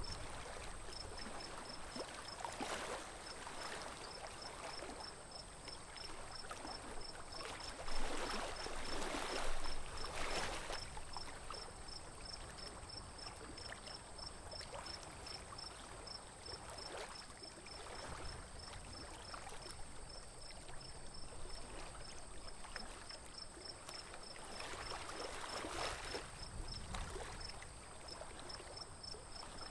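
Water swishing and lapping against a small wooden boat as it moves through a lake thick with lilies and weeds, swelling every several seconds and loudest between about eight and ten seconds in. A faint, even high-pitched ticking, a few times a second, runs beneath it.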